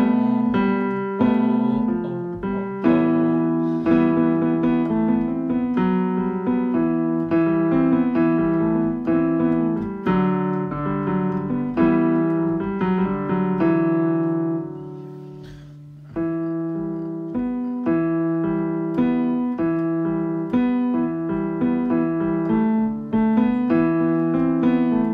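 Piano music: a steady repeating pattern of struck notes and chords. It fades down about fourteen seconds in, then starts again a second or two later.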